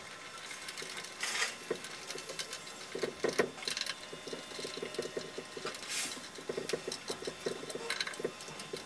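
Screwdriver turning the clamp-lug screws inside the steel flue collar on top of a Morso Squirrel stove, nipping the collar down onto the stove top: runs of quick small metallic clicks and scrapes, with a few sharper clicks.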